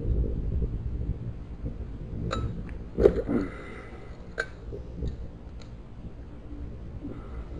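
Handling noise as a bass is grabbed by the lip beside a kayak and lifted aboard: a low rumble at first, then several scattered clicks and knocks from the fish, lure and gear against the hull, the loudest about three seconds in.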